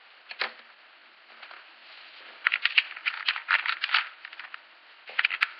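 Hard plastic parts of a Play-Doh dentist toy set clicking and rattling as they are handled. There is a single click under a second in, a quick run of clicks and knocks in the middle, and a few more clicks near the end.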